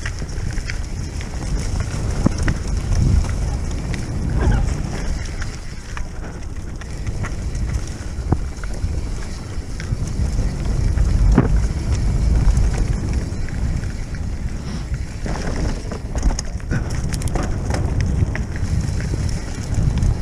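Wind buffeting the microphone of a rider-worn camera on a mountain bike descending a dirt trail. The tyres rumble over dirt and leaves, and scattered knocks and rattles come from the bike over bumps.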